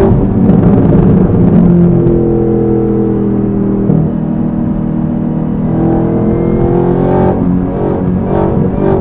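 Supercharged 6.2-litre V8 of a Chevrolet Camaro ZL1, fitted with a cold-air intake and an aftermarket cat-back exhaust, pulling under acceleration. The engine note changes pitch, with a gear change and a dip in level about four seconds in before it pulls again.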